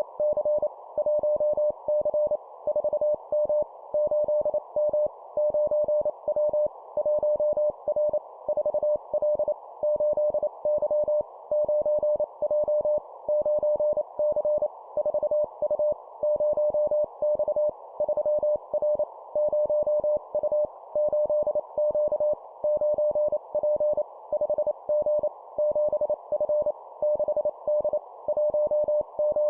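Morse code (CW) sent at 25 words per minute as a keyed tone of about 600 Hz, in short two-character groups of letters and numbers separated by brief pauses. A steady, narrow band of hiss runs behind the tone.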